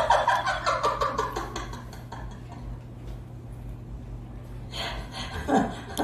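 Laughter: a burst of quick ha-ha pulses lasting about two seconds and sliding down in pitch, then a lull with a low steady hum, and a voice again near the end.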